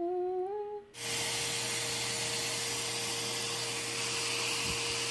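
A short, slightly rising voice sound, then about a second in a forced-air dog dryer starts blowing through its hose: a steady hiss of rushing air over a steady motor hum. It is drying a freshly bathed husky's wet coat.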